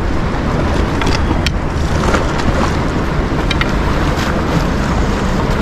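Steady rush of flowing river water, with a few faint ticks.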